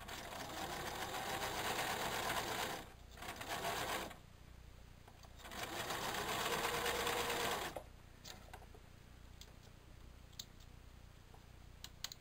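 Electric domestic sewing machine running a straight stitch through thick terry towelling, in three spells: a run of about three seconds, a short burst, then after a pause another run of a couple of seconds. After about eight seconds the machine stops, leaving only a few light clicks.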